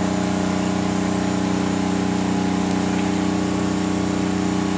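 An engine running at a constant speed, making a steady, unchanging hum.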